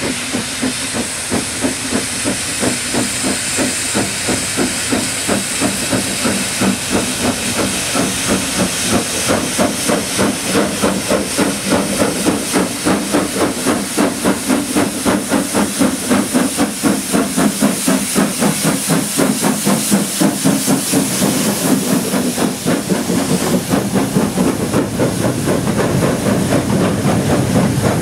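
Steam locomotive working hard as it approaches, a rapid, regular exhaust beat of about four chuffs a second over a loud hiss of steam from its open cylinder drain cocks. Near the end the beat gives way to a more even rumble as the hopper wagons roll past.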